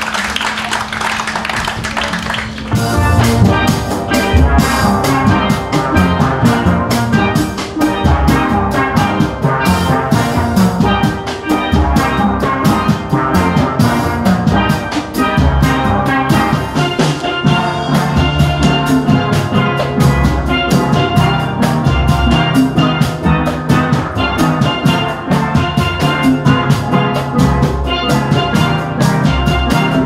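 Audience applauding, then about three seconds in a steel band starts up: steelpans playing a bright melody and chords over drums and deep bass notes.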